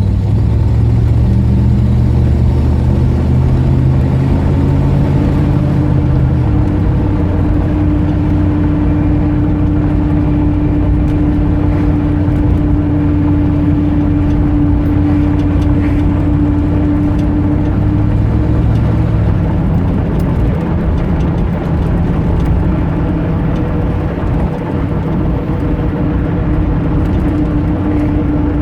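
1989 Dodge Ramcharger running under way, with a steady whine that comes in a few seconds in, drops out about two-thirds of the way through and returns near the end. This is the throttle-dependent squeal the owner is chasing, cause unknown.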